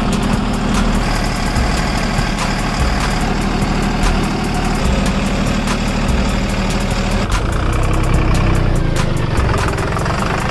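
A heavy truck engine idling steadily, with a low hum and a fast rattling clatter.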